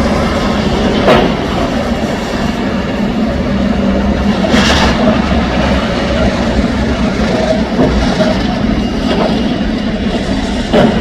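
Heavy demolition-site machinery running steadily with a low engine hum, with sharp metallic clanks about a second in, near five seconds and again near the end.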